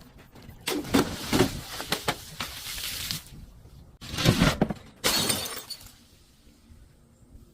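Glass bottle breaking and shattering, with crunching glass in three bursts: a long one from about a second in to three seconds, then two shorter ones about four and five seconds in.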